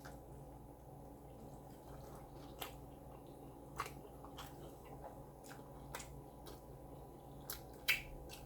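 Faint, close-up eating and food-handling sounds: scattered small clicks and wet squishes, with a sharper click or two near the end.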